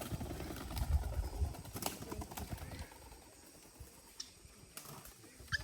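Irregular knocks and low thumps over the first two seconds, then quieter outdoor air with a few short, sharp bird calls near the end.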